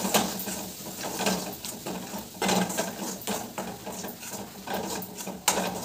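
Metal spatula scraping and stirring thick gongura chutney in a steel kadai, in irregular strokes, as ground green chilli, dried chilli and garlic paste is mixed into the cooked gongura leaves.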